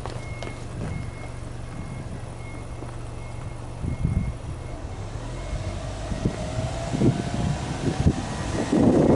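Subaru Legacy B4 2.5GT's turbocharged flat-four engine idling steadily at the twin exhaust tips. A faint high beep repeats about twice a second through the first half. Near the end the throttle is blipped and the exhaust note surges louder.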